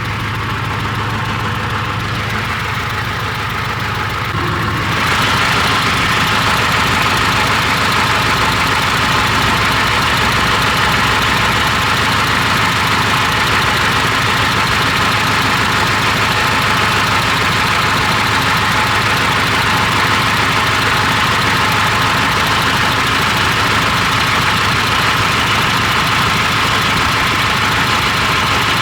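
John Deere 245G excavator's Isuzu diesel engine running steadily, getting louder about five seconds in. The mechanic takes its heavy smoke for a misfire from one injector that is not firing (cylinder 4).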